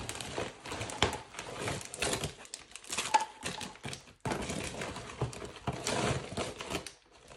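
A package being opened by hand: packaging rustling and crinkling, with irregular clicks and taps. It stops briefly about four seconds in.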